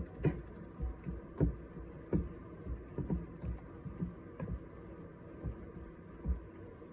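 Silicone spatula stirring a thickening glue, baking soda and saline slime mixture in a plastic bowl: uneven soft knocks and scrapes, about two a second.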